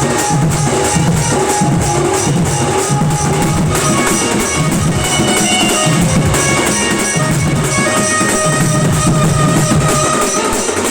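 Sambalpuri band party playing an instrumental song: a steady pulsing drum beat under a sustained melody line.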